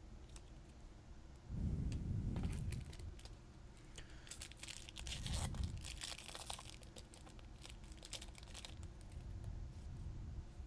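Foil booster pack wrapper being torn open and crinkled, with crackly rustling and a couple of dull thumps from handling.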